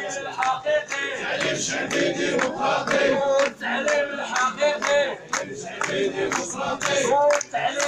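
A crowd of protesters chanting slogans in unison, with hand clapping marking the beat.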